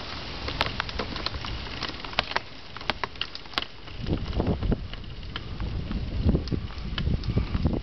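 Bicycle climbing a steep hill over rough patched pavement and loose gravel: scattered clicks and rattles, with heavier low rumbling from about four seconds in.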